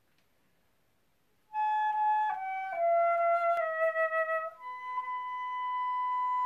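Flute playing a melody. About a second and a half in it enters with three short notes stepping down, then holds one long, higher note.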